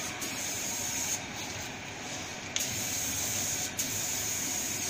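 Compressed-air paint spray gun hissing steadily as it sprays a car bumper. The spray stops for about a second and a half a little after the start, then comes back on suddenly, with a couple of very short breaks in between.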